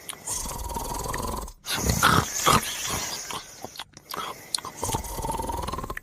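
Loud snoring in a repeating cycle: rough, rattling breaths alternate with a thin whistling tone on the out-breath, with brief silences between breaths.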